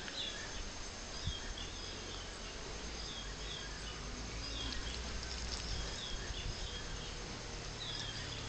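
Outdoor insect ambience: a steady high insect hiss with short, high chirps repeating every second or so.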